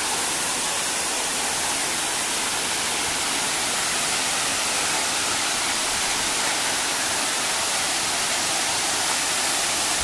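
Steady rushing of a waterfall about 50 feet high, its water falling over a rock face into a pool.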